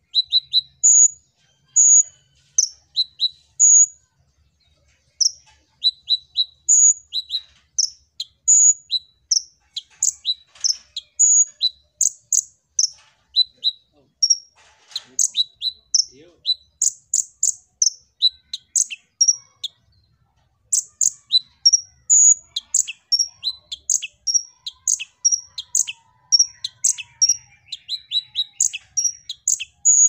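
Male Van Hasselt's sunbird (kolibri ninja) calling vigorously: rapid runs of short, sharp, very high chirps, several a second, broken by brief pauses.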